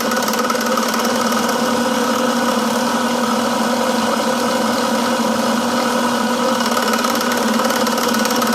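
Milling machine running steadily at a fixed pitch, with a high hiss over its hum.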